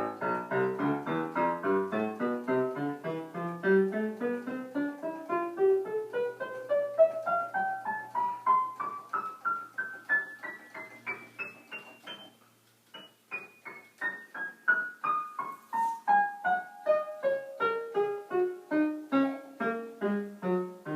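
Roland EP-7E electric piano played one key at a time in even notes, climbing steadily up the keyboard, then after a short pause about twelve seconds in, stepping back down. It is a key-by-key test: each key sounds, showing no dead or sticking keys.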